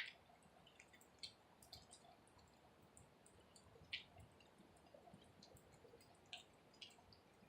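Near silence, broken by faint, irregular short ticks every second or so, the clearest at the very start and about four seconds in.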